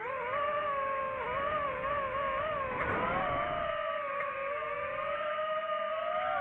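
Quadcopter drone's propellers whining steadily, the pitch wavering slightly up and down as the motors adjust. A brief rush of noise about three seconds in.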